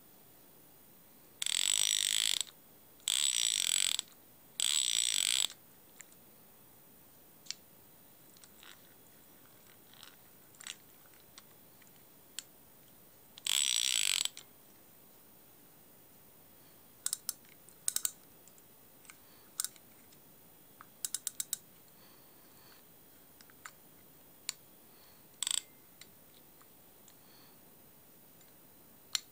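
A 1964 K.P. Morritt Monarch fixed-spool spinning reel worked by hand: four loud ratcheting buzzes of about a second each, three close together near the start and one about 14 seconds in, followed by scattered single clicks and a quick run of about five clicks from the reel's mechanism.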